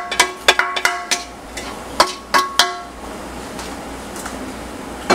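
A large spoon stirring vegetables on a foil-lined baking pan: a run of sharp clinks and scrapes with short ringing in the first three seconds, then quieter, with one more clink near the end.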